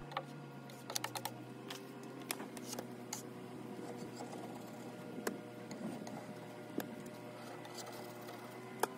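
Metal putty knife scraping chemically softened paint off a wooden panel: scattered light clicks and short scrapes as the blade catches and lifts the goo, over a faint steady hum.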